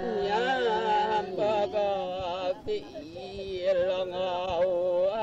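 Background music: a voice singing or chanting a slow melody in long wavering held notes over a steady low tone.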